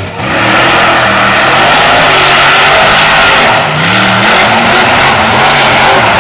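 Diesel monster truck engine at full throttle as the truck launches and accelerates down the drag strip. It is loud, and its note rises and drops back several times.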